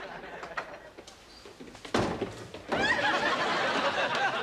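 A door thumping shut about two seconds in, followed by a loud stretch of many voices.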